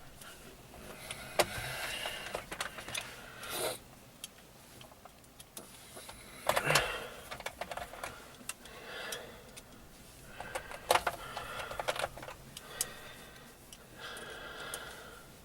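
Small scattered clicks and scratchy rustling from hand-starting screws and handling the plastic heater control panel and its parts.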